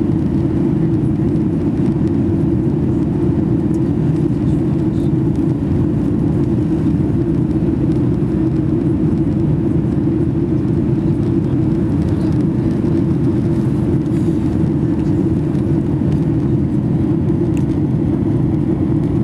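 Steady, unchanging drone inside the cabin of a Boeing 737 in flight: its two CFM LEAP-1B turbofan engines and the air rushing past the fuselage, with most of the sound deep and low.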